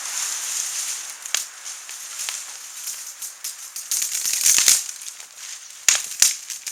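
Freshly lit wood fire of dry grass, twigs and small branches crackling: a steady hiss with irregular sharp pops, which come thickest about four seconds in and again near the end.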